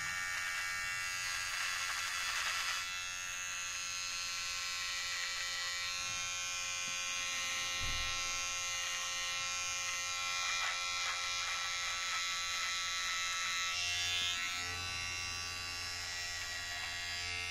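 Aprilla AHC 5033 rechargeable hair and beard trimmer running on its first speed setting, a steady buzz, as its blade trims mustache hair.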